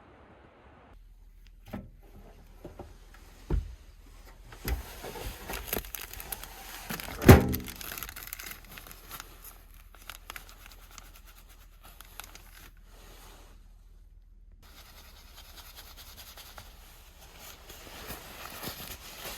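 Objects being handled at close range: a few separate thuds with rustling and crinkling between them, the loudest thud about seven seconds in.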